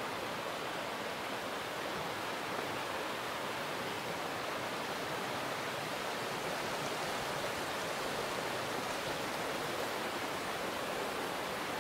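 Steady rush of a rocky mountain stream flowing over stones, an even hiss of running water with no change in level.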